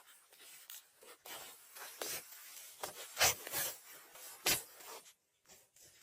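Irregular rubbing and scraping strokes of hand work on materials, with two louder dull knocks around the middle, then quieter.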